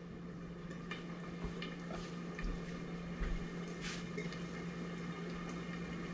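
Chicken wings frying in oil in a pan under a glass lid: a quiet, steady sizzle with a few small pops, over a steady low hum.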